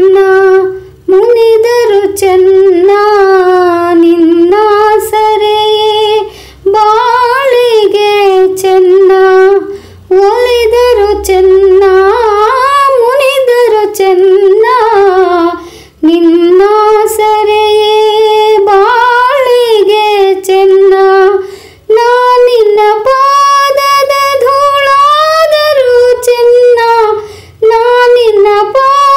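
A woman singing a Kannada devotional song solo, in long sliding phrases with ornamented turns, pausing for breath every few seconds.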